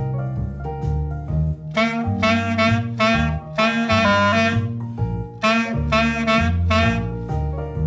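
Jazzy band music: wind instruments play short, punchy repeated phrases over a bass line that steps from note to note.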